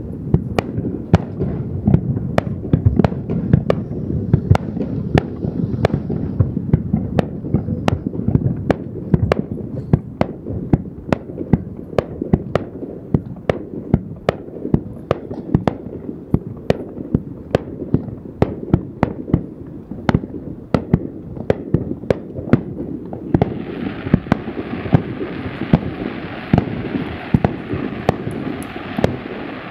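Aerial firework shells bursting in quick succession: sharp bangs about two a second over a continuous low rumble of booms. A steady hiss joins about three quarters of the way through.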